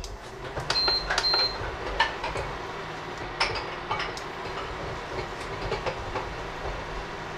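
Portable electric hob beeping twice, about a second in, as its heat is set, then running with a steady low hum. A silicone spatula scrapes and taps in the saucepan.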